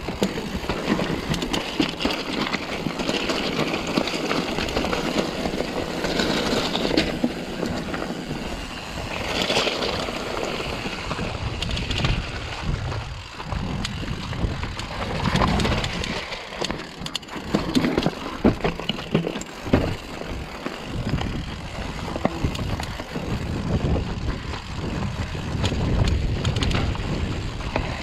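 Mountain bike rolling down a rocky track of loose stones: tyres crunching over rocks and the bike rattling, with many small knocks and clicks. Wind buffets the microphone in the second half.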